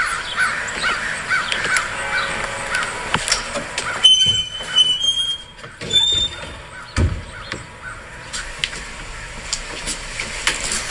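Crows cawing repeatedly. About four seconds in, a metal garage door squeals as it is pulled down, squealing again near six seconds, and lands with a low thud about seven seconds in.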